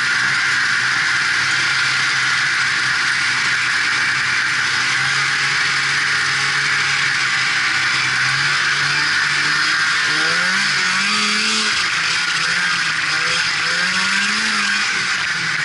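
Polaris Indy Sport 340 snowmobile's two-stroke engine running under way, over a steady hiss. The engine note holds steady, then rises and falls twice in the second half as the throttle is worked.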